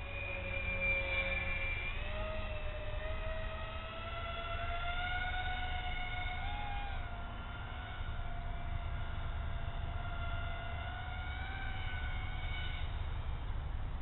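Propeller whine of a Hydrofoam radio-controlled twin-motor flying boat in flight: one steady tone that steps up in pitch about two seconds in, then wavers up and down and fades near the end. Low wind rumble on the microphone underneath.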